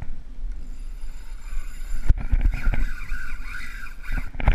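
Wind rumbling on the microphone, with knocks from handling the fishing rod and reel while fighting a hooked bull shark. From about a second and a half in, a steady whirring from the reel joins it.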